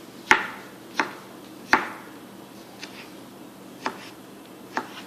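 Santoku knife chopping canned peaches on a cutting board: about six separate knocks of the blade on the board, roughly a second apart, the first three louder than the rest.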